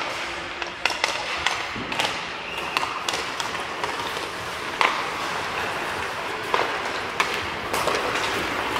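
Ice hockey play on an indoor rink: irregular sharp clacks of sticks on the puck and ice, and a steady scrape of skates on the ice.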